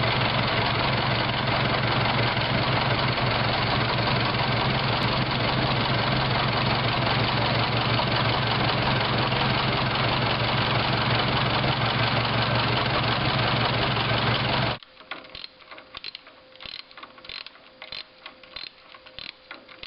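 1915 runabout's engine running with a definite knock, the result of recent maintenance. It stops abruptly about fifteen seconds in, leaving only faint scattered clicks.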